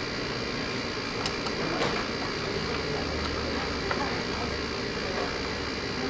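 Steady background hum of room noise, with a few faint light clicks of copper pipe and fittings being handled and pushed together on a wooden bench.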